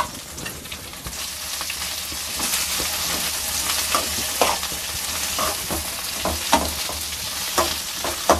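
Boiled potato pieces sizzling in oil in an aluminium kadai while a metal spoon stirs them, with a steady hiss of frying and the spoon knocking and scraping against the pan about once a second in the second half.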